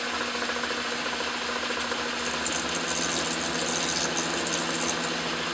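Craftsman Atlas lathe running with a steady mechanical hum and gear rattle as the chuck spins brass hex stock. A high hiss joins about two seconds in and fades near the end as the tool turns the brass down.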